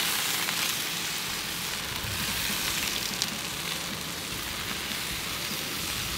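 Bacon-wrapped stuffed chicken breasts sizzling steadily on a Blackstone flat-top griddle set to low heat as they are turned with metal tongs, with a light click about three seconds in.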